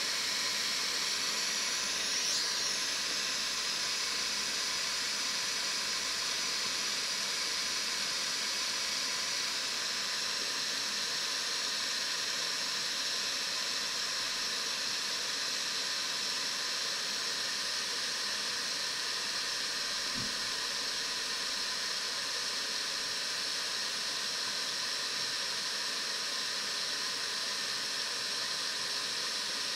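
Hakko FR-810B hot air rework station in cool-down mode: its internal pump keeps blowing air through the handpiece nozzle to cool the heating element after heating has been cancelled, giving a steady hiss.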